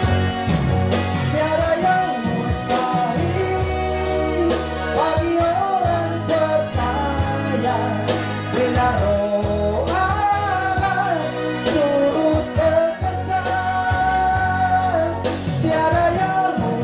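A man singing a Christian worship song into a microphone over a backing track with a steady bass line. The melody line wavers and is held on long notes.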